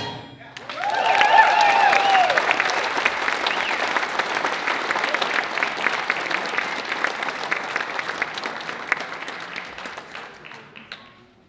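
Audience applause and cheering, starting just under a second in, with a whooping voice rising and falling over the clapping at first. The clapping slowly thins and dies away near the end.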